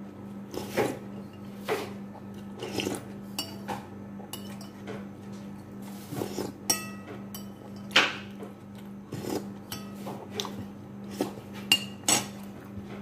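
Irregular sharp crunches of a crisp cracker being bitten and chewed, mixed with a few ringing clinks of a metal spoon against a ceramic plate.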